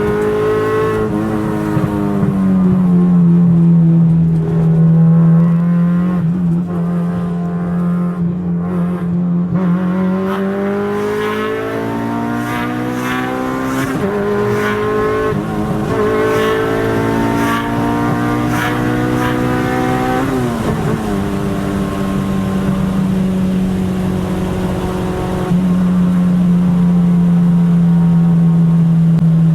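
Car engine running hard, its pitch climbing and falling several times as it revs through shifts. The pitch drops sharply about twenty seconds in, then holds steady and a little louder near the end.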